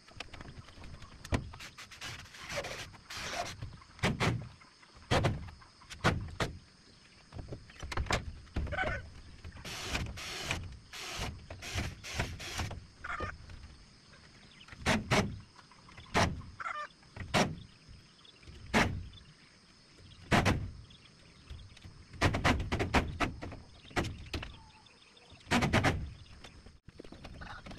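Irregular knocks, bangs and scrapes of timber being handled and fixed while putting up wooden posts, some blows in quick clusters. A steady high hum runs in the background.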